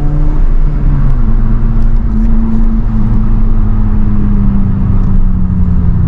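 Honda Civic FN2 Type R's 2.0-litre four-cylinder engine running under way, heard from inside the cabin over steady road rumble. Its note drops about a second in, then holds and sinks slowly.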